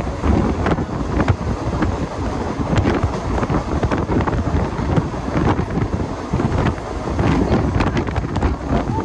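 Heavy wind buffeting the microphone at the open door of a moving Mumbai local electric train, over the steady running rumble of the train, with scattered sharp clicks and clatter from the wheels on the track.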